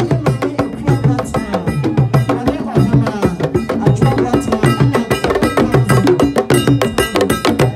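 Traditional drum ensemble playing a fast, dense rhythm: several drums struck with curved sticks, with sharp high clicking strokes over the low drum tones.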